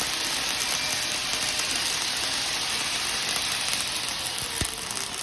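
Dual Shield flux-cored arc welding at about 22 volts and 260 amps: the arc gives a steady, dense crackle.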